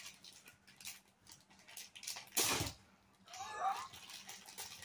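Plastic toy packaging crinkling and being torn open, with one loud sudden rip about two and a half seconds in, then a short high-pitched gliding squeal.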